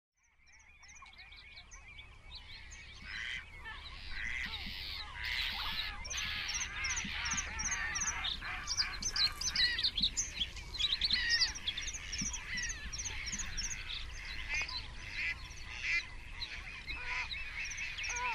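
A dense chorus of many birds calling at once, with overlapping honking calls and high, quickly repeated chirps. It fades in from silence over the first few seconds.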